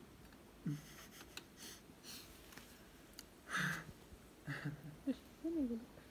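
Soft, short vocal sounds and breaths: a brief hum about a second in, breathy puffs midway, and a falling murmur near the end.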